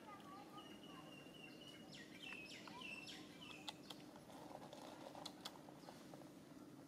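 Faint high chirping calls over a low steady hum: a held whistle-like note, then about two seconds in a quick run of four or five falling chirps, with a few light clicks.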